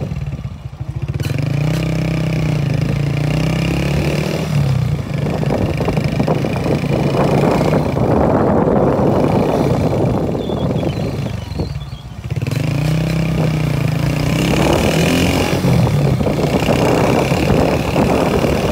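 Motorcycle engine running while under way, with wind rushing over the microphone. The engine note drops away briefly twice, under a second in and again about twelve seconds in, then rises as it pulls again.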